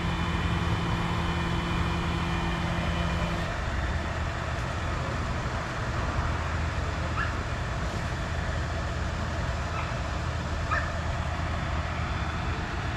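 Crane truck engine running steadily. A steady whine over it stops about three and a half seconds in.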